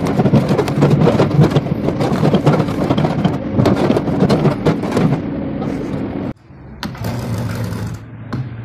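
Hydraulic excavator running while its bucket teeth scrape and crunch into the root end of a walnut log, with many crackles and knocks over the engine's steady hum. A little over six seconds in, the sound cuts off abruptly to a quieter steady hum with a few clicks.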